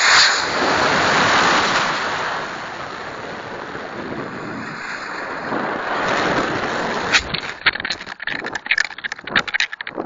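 Model rocket motor igniting and lifting off, heard from a camera riding on the rocket: a sudden loud rush of exhaust and wind noise that starts abruptly and carries on as it climbs. About seven seconds in it gives way to irregular clattering and buffeting knocks.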